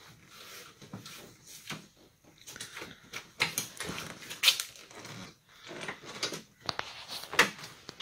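Interior door panel of a 1978 Pontiac Trans Am being pulled off the door by hand: an irregular series of sharp snaps and creaks as the old retaining clips pop loose and the cardboard-backed panel flexes, the loudest snaps about halfway through and near the end.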